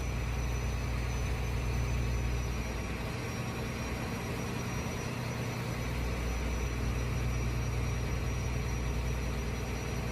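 Fishing trawler's engine running steadily: a continuous low hum under a noisy haze, with a thin steady high tone over it.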